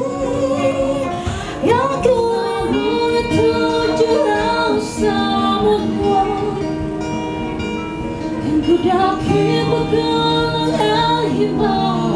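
A woman singing a slow melody with long held notes, accompanied by strummed acoustic guitar.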